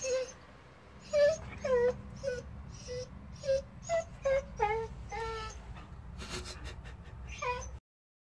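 A Japanese Akita Inu whining and moaning in a string of about a dozen short, pitched calls, some sliding in pitch.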